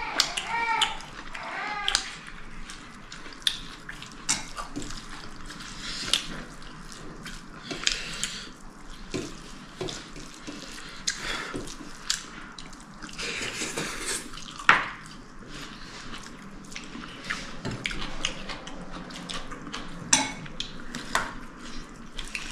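Sounds of eating a meal at the table: scattered short clicks and clinks of plates and cutlery, with wet sounds of food being handled.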